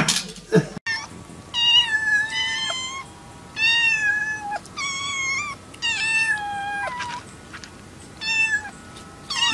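Two young tabby kittens mewing over and over: high-pitched mews, each under a second long, about one a second, some overlapping. A short clatter comes at the very start.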